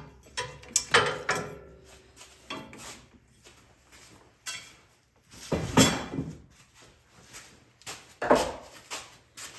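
Scattered metal clinks and knocks of hand tools and old hose clamps being clipped off and set aside, the loudest knock about six seconds in.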